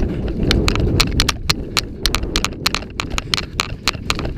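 Running footsteps crunching through snow, with the rumble of clothing and gear and a scatter of sharp, irregular clicks and snaps.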